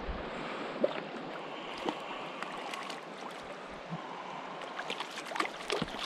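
Creek water running steadily, with irregular sharp splashes from a hooked rainbow trout thrashing at the surface, coming more often in the last couple of seconds.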